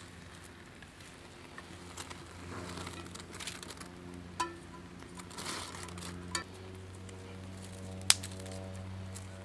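Wood campfire crackling, with scattered sharp pops, the loudest about eight seconds in. Soft background music with sustained chords that change about six and a half seconds in.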